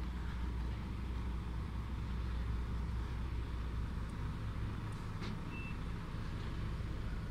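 Heavy dump truck's diesel engine running with a steady low rumble. A single short high beep comes a little past halfway.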